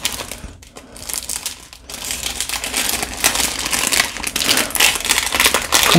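Clear plastic sleeve crinkling as fingers pick and pull at it while struggling to get it open. The crinkling is sparse for the first couple of seconds, then turns steady and dense.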